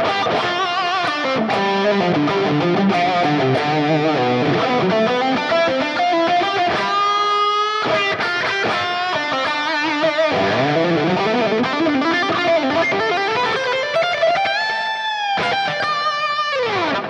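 Electric guitar on its bridge humbucker, played through an Axe-Fx III FAS Wrecker amp model with a low-gain BB preamp drive in front: an overdriven lead line of quick notes with vibrato. A long held note comes about halfway through, an upward bend comes near the end, and it finishes with a falling slide.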